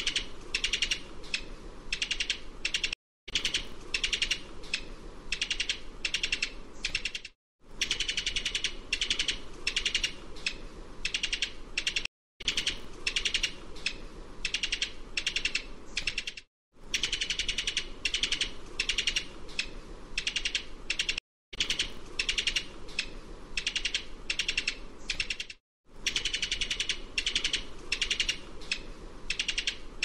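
Typing sound effect: rapid, irregular key clicks in stretches of about four to five seconds, each cut by a brief silence. It repeats as a loop six times.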